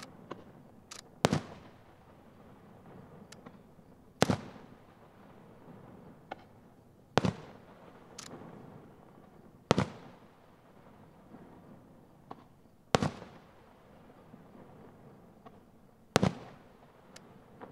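Aerial firework shells bursting: six loud, sharp bangs about three seconds apart, each trailing off in a rolling echo, with smaller pops and cracks between them.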